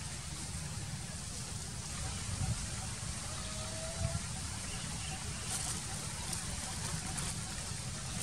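Steady background noise, an even hiss over a low rumble, with a short faint whistle-like tone about three seconds in and a few faint clicks in the second half.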